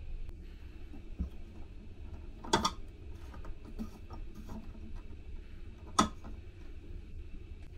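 Plastic clicking and light scraping as the centre knob of a round air-conditioning vent is turned by hand to open or close the airflow. There is a sharp click about two and a half seconds in and another about six seconds in, over a steady low hum.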